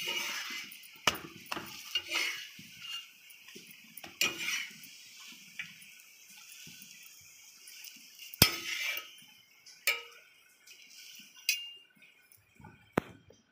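Steel spatula and cookware clattering on an iron tawa and a steel plate: scattered sharp clinks and knocks, the loudest about eight seconds in.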